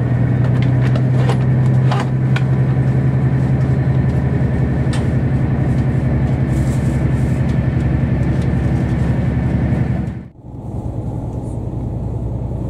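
Diesel engine of a KiHa 40-series railcar running steadily under power as the train pulls away, heard from inside the car, with a few clicks from the wheels on the track about one to two seconds in. Near the end the sound cuts out abruptly and comes back as a quieter running drone.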